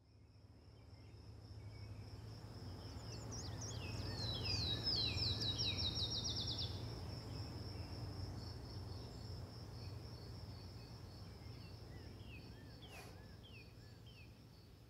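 Outdoor nature ambience that fades up and back down: a steady high insect trill, with a songbird's fast run of descending chirps a few seconds in and a few short calls near the end, over a low steady rumble.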